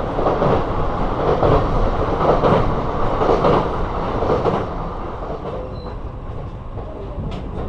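An electric local train running on the rails, the rumble easing off after about five seconds.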